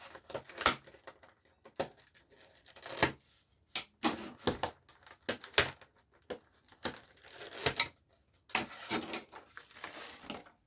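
Foil booster-pack wrapper being torn and crinkled while the trading cards are handled: a run of irregular crackles and small clicks.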